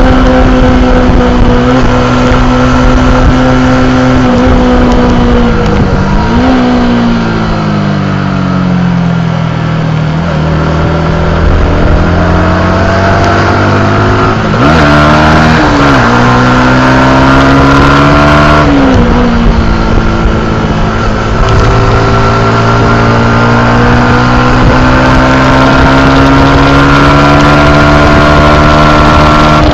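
Yamaha YZF R125's 125 cc single-cylinder four-stroke engine at high revs, heard from on board the bike. The revs hold high, dip sharply about six seconds in, fall away over several seconds as the bike slows, then climb again with quick drops at the gear changes, rising steadily toward the end.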